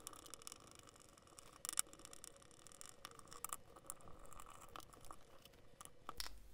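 Torx screwdriver backing screws out of the metal cover of a Bosch EDC15 engine control unit: faint scraping and a few sharp metallic clicks.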